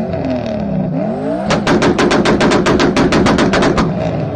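Turbocharged 1UZ-FE V8 in a Toyota Supra being revved in quick blips, then held on the rev limiter for a little over two seconds. The limiter cut makes a rapid string of loud exhaust bangs, about ten a second, like machine-gun fire.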